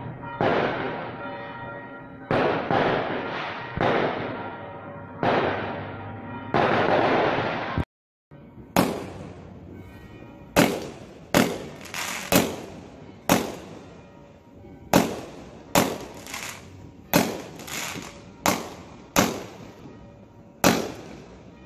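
Fireworks: for the first several seconds, shells burst about every second and a half, each trailing off in a long crackle. After a brief cut-out comes a quick run of sharp bangs, roughly one or two a second.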